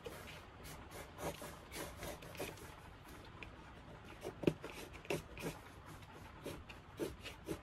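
Pencil scratching over textured watercolour paper in short, irregular strokes as fine lines are drawn in, a few strokes louder in the second half.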